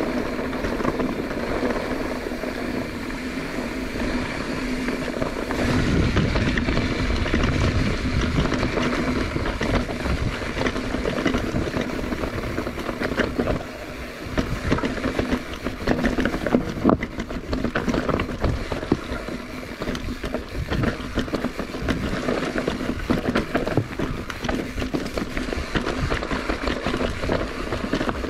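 Wind buffeting the microphone during a ride, with steady rushing noise and frequent knocks and rattles from bumps, busiest about halfway through.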